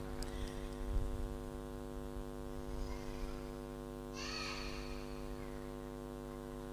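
Steady electrical mains hum from the microphone and sound system, with a brief soft noise about four seconds in.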